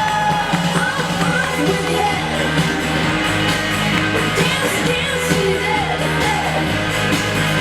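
Pop-rock music with a singing voice over bass and drums keeping a steady beat.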